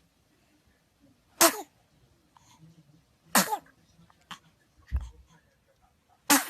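A baby sneezing three times. Each sneeze is a sudden, sharp burst with a short falling pitch, and they come about two and then three seconds apart.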